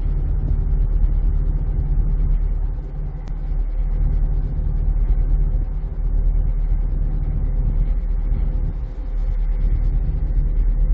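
Passenger ferry's engine running under way: a steady low rumble with a constant hum on top.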